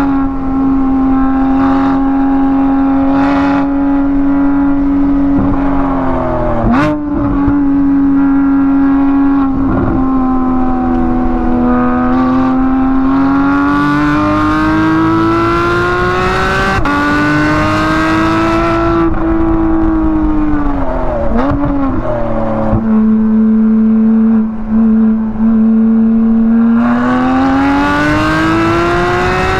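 Porsche 718 Cayman GT4's naturally aspirated 4.0-litre flat-six, modified for sound, running hard on track and heard from inside the cabin. Its note climbs and falls with the revs, drops sharply and recovers at two gear changes (about seven and about twenty-one seconds in), holds steady for a few seconds, then rises again near the end.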